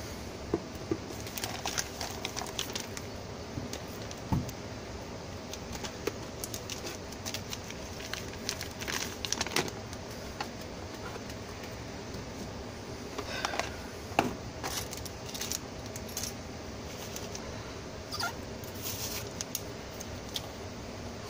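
Clear LDPE plastic bag crinkling and rustling as a mini PC is handled and slid out of it, with scattered light knocks, over a steady background hum.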